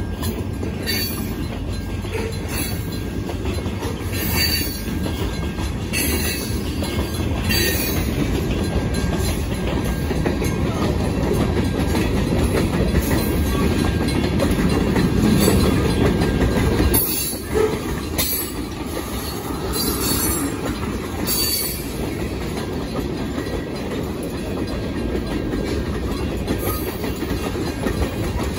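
Huron Eastern freight train rolling past at close range. The trailing diesel locomotives go by first, then a string of hopper and tank cars follows, the wheels clicking and clacking over the rail joints.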